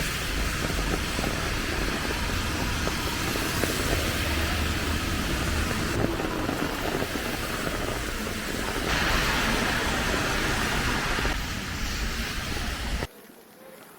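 Loud, steady rumble and hiss of street traffic, starting and stopping abruptly and shifting in tone a few times.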